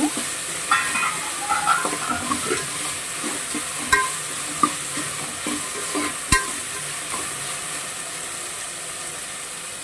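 Diced vegetables (potato, carrot, peas) sautéing in an aluminium pot with a steady sizzle, stirred and scraped with a metal ladle. Two sharp knocks of the ladle against the pot come about four and six seconds in.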